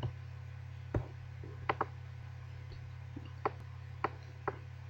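Scattered single clicks of a computer mouse and keyboard, about six in all, two of them in quick succession about two seconds in, over a steady low electrical hum.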